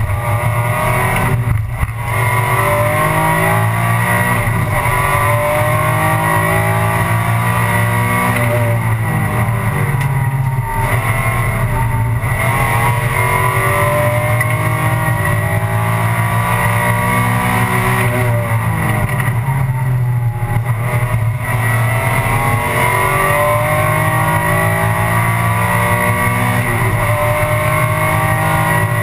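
Alfa Romeo 156 GTA race car's V6 heard from inside the cockpit, driven hard: the engine note climbs steadily through each gear and drops back at every upshift. A few times it falls away in quick steps as the driver brakes and shifts down.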